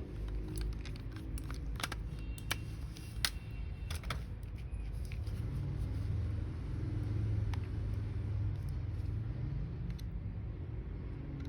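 Scattered small sharp clicks and taps of plastic parts of a Logitech G903 mouse being handled, several in the first few seconds and a few more later, over a steady low hum.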